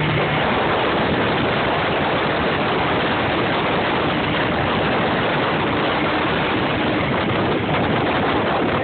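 Small boat's motor running steadily, its noise a dense, even roar echoing inside a canal tunnel.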